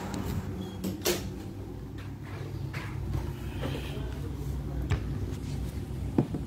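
A few sharp knocks and clicks, about a second in, around five seconds and just before the end, as a phone is handled and carried, over a steady low hum.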